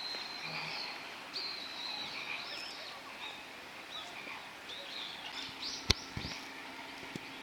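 Small birds chirping and calling over outdoor background noise, with a sharp click about six seconds in and a low steady hum coming in near the end.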